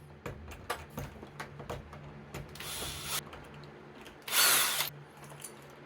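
Lock hardware being handled: irregular light clicks and knocks, with two short rushing noises, the second and louder about four seconds in.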